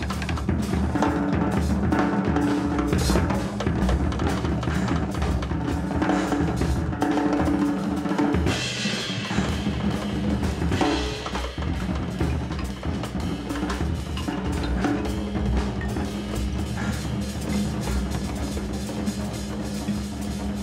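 Large jazz orchestra playing: two drum kits busy with snare, bass drum and cymbal strokes over sustained low tones from the ensemble.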